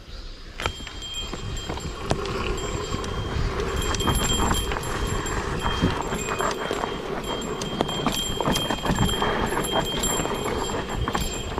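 Mountain bike rattling and clattering over a rough single-track, with many quick knocks from roots and rocks and a high buzz that comes and goes. The noise builds over the first two seconds as the bike picks up speed.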